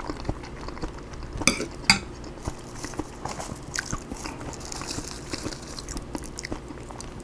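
Spoon clinking and scraping against a dish while broccoli fried rice is scooped and chewed, with two louder clinks about a second and a half and two seconds in.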